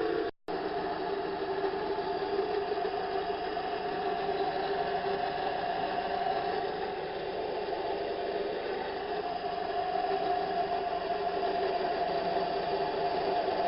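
Metal lathe running steadily while turning a 12L14 leaded steel bar down to size. The sound drops out for an instant about half a second in.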